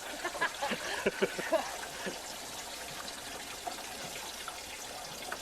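Water trickling and splashing, with a run of small plops and drips in the first second and a half, then a steady faint wash of water.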